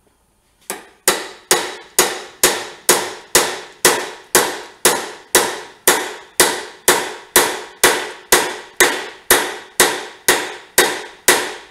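Steady hammer blows, metal on metal, about two a second, each ringing briefly, as a rust-seized fork tube is worked loose from a 1972 Honda CT70's triple tree.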